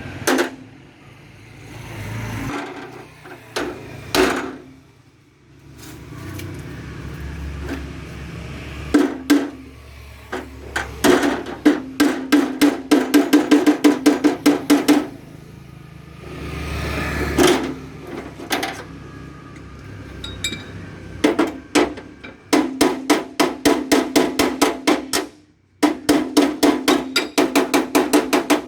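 Sheet-metal tractor mudguard being hammered: runs of quick, ringing metal blows, about five a second, broken by short pauses.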